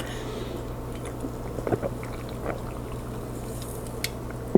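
Steady low hum with a few faint, scattered small clicks and rustles, and one sharp knock at the very end.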